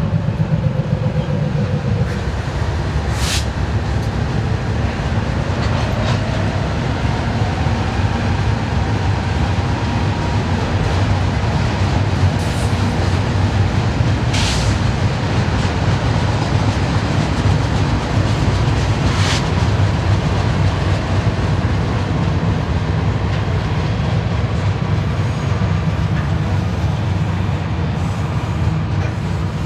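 BNSF freight train climbing upgrade: its diesel locomotives pass under load, then a steady rumble of double-stack container cars rolling over the rails, with a few short high-pitched wheel squeaks.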